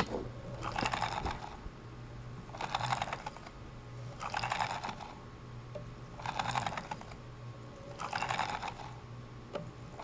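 The rotary selector switch of a Keysight U1231A multimeter is being turned back and forth by a motorised test rig. It clicks through its positions with a squeak and grind in five short bursts, about one every two seconds, over a steady low hum. At about 5,000 cycles the unlubricated switch has begun to squeak and almost sounds like it's grinding.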